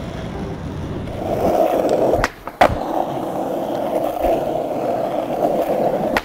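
Skateboard wheels rolling on asphalt, a steady rumbling hiss. A little over two seconds in, the rolling cuts out for a moment and is followed by a sharp clack as the board comes back down, then rolling resumes. A second pop and drop-out come at the very end.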